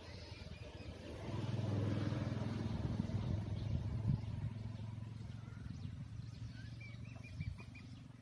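A motor vehicle's engine hum that swells about a second in and then slowly fades away, as of a vehicle passing by. A few faint high chirps come near the end.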